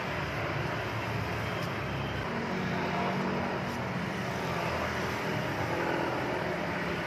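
Steady background noise of road traffic, a continuous low rumble with no distinct events.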